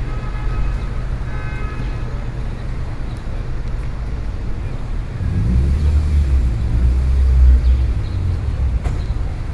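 City street ambience: a steady low rumble of road traffic, with a brief pitched tone near the start. About five seconds in, a vehicle passes close, its low rumble swelling and then fading about three seconds later.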